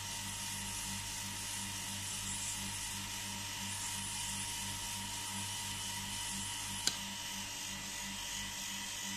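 Steady electrical buzz and hum with hiss from a running flyback-transformer plasma rig, with a pulsing low throb under it. A single sharp click comes about seven seconds in.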